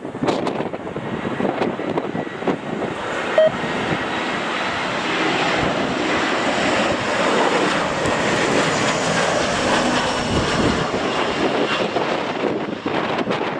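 Jet airliner engines: a broad rushing roar that builds over several seconds, holds, then eases off toward the end as the aircraft passes.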